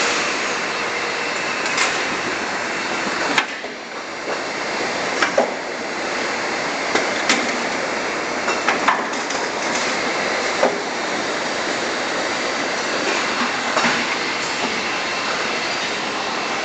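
Factory packing-line machinery running with a steady din, broken by sharp, irregular clacks from the mechanism every second or two.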